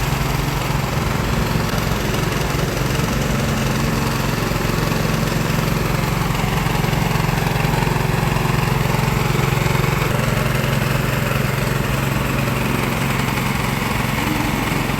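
An engine running steadily at idle with a constant low hum.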